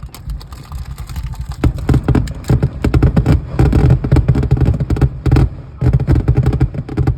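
Fireworks going off: a dense run of rapid, irregular crackling pops over a low rumble, starting about a second and a half in.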